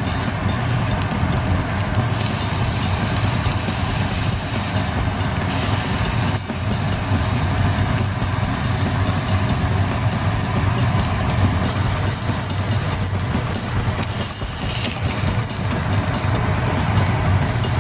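Thick slab of bacon sizzling and spattering on a small thick iron griddle, a dense steady crackle with a low rumble underneath.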